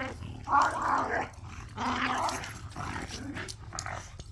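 Dogs growling at each other as they scuffle, in two loud stretches of about a second each, followed by quieter growls.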